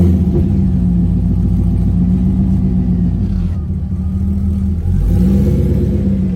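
C5 Corvette's V8 engine idling just after start-up, running steadily, with a brief dip in its note about five seconds in.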